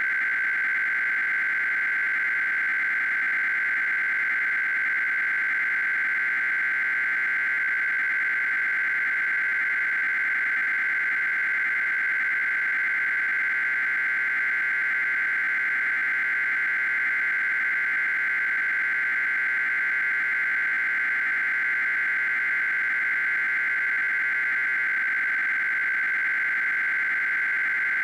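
Steady, unchanging electronic hiss with a thin steady high tone running through it: the filler audio of a mock Emergency Alert System broadcast between its SAME data headers.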